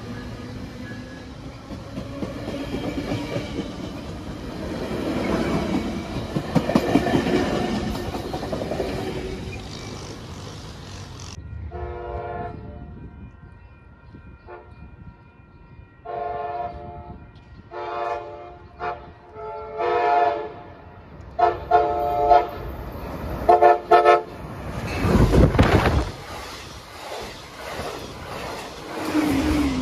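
Passenger train cars rolling along the rails with a steady rumble. After an abrupt break, a train horn sounds in a series of about seven short blasts, followed by a brief loud low rumble near the end.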